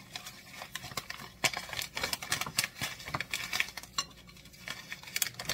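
Crinkling of a bag of pickling and canning salt handled in plastic-gloved hands, with salt pouring into a bowl: irregular crackles and ticks throughout.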